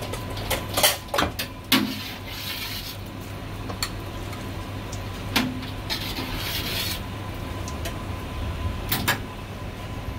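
Chef's cleaver knocking on a wooden chopping block while slicing marinated goose breast: a quick cluster of sharp knocks in the first two seconds, then single knocks every few seconds and a final pair near the end. Two stretches of rasping scrape of the blade on meat and board, with a steady low kitchen hum underneath.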